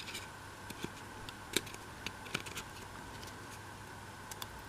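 Light, scattered clicks and taps of laser-cut MDF model-building parts being handled and pressed into their slots, with a sharper click near the end as a piece seats.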